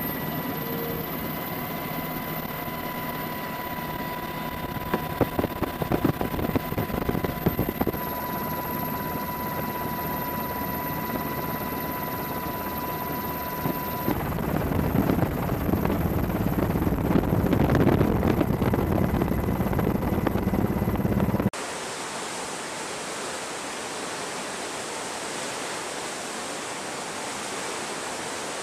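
Helicopter cabin noise: a steady rotor and engine drone with a thin whine and wind buffeting on the microphone, louder from about the middle. About three-quarters through it cuts suddenly to the even rushing hiss of a ship's churning wake.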